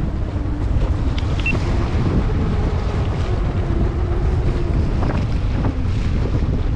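Wind buffeting the microphone on an open fishing boat at sea, over the low, steady running of the boat's engine, with a couple of short knocks about five seconds in.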